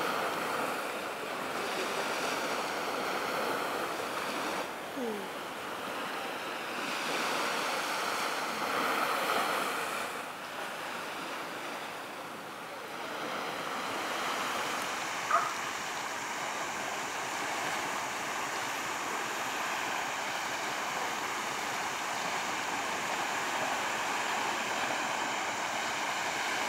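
Small waves washing onto a sandy beach: a steady surf hiss that swells and eases slightly. One sharp click sounds about fifteen seconds in.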